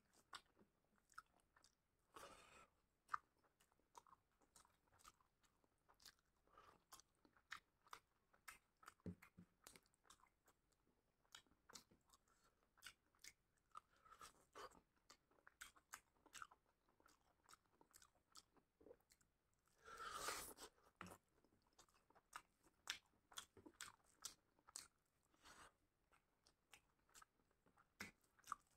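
Faint close-up chewing and biting of a chicken drumstick and rice eaten by hand: many short, wet mouth clicks and smacks. About twenty seconds in there is a longer, louder noisy sound lasting about a second.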